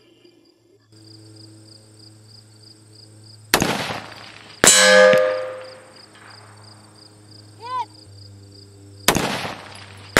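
Two rifle shots from a Colt M4 in 5.56 NATO, each a sharp crack followed about a second later by the louder, fading ringing clang of a hit on a steel silhouette target at 586 yards. Insects buzz faintly throughout.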